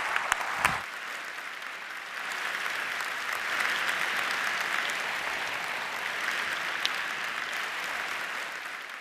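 A large audience applauding, a dense, even clatter of many hands clapping that swells a little about two and a half seconds in.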